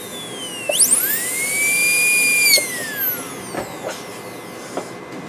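High-speed air-turbine dental handpiece (airotor) running with a 330 bur. Its high whine dips and climbs again about a second in, holds steady for about a second and a half, then winds down with falling pitch, followed by a few light clicks.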